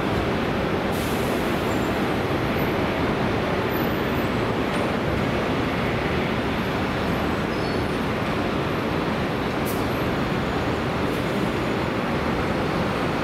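Steady noise of airliner jet engines running at low power on the ground, an even hiss and rumble with no rise or fall in level.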